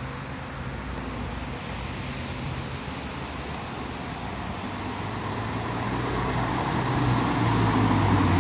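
A Ford Fiesta ST's 1.6-litre turbocharged four-cylinder engine and its tyres on brick paving as the car drives up, a steady low note that grows louder over the last few seconds; the engine makes little noise.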